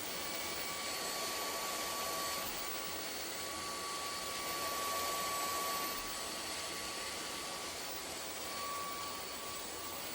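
Hoover ONEPWR WindTunnel Emerge cordless stick vacuum running: a steady rush of air with a thin motor whine over it.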